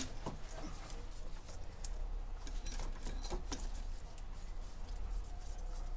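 Faint, scattered clicks and taps of pliers and hands working on hose clips and braided oil hoses in a car engine bay, over a low steady rumble.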